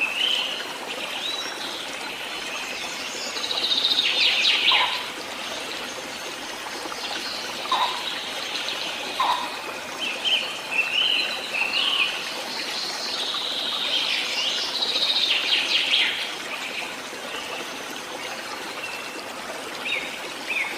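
Birds chirping and warbling in repeated short phrases over a steady trickle of running water.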